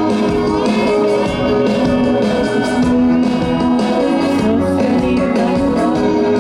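Live rock band playing loudly, with strummed guitars.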